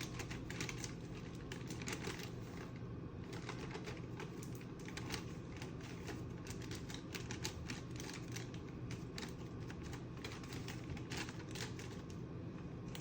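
Dry pancake mix being measured into a measuring cup: a string of irregular light ticks and rustles, over a steady low hum.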